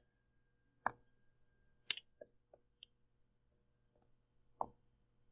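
A handful of short, sharp computer mouse clicks, six or so spread over a few seconds, the louder ones about a second in, about two seconds in and near the end, over a faint steady electrical hum.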